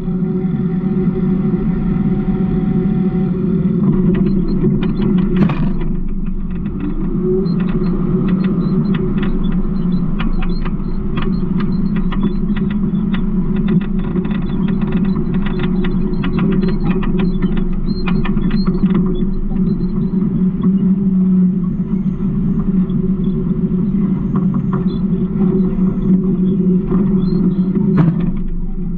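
Garbage truck running with a steady low drone, overlaid from about four seconds in to about twenty seconds in by a dense run of short clicks and creaks.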